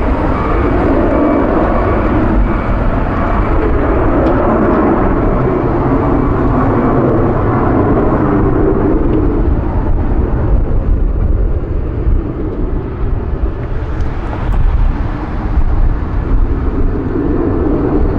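Deep, steady roar of a Boeing 737-200's two Pratt & Whitney JT8D low-bypass turbofans at takeoff power as it climbs out, with a constant low rumble underneath. The roar thins a little in the second half as the jet pulls away.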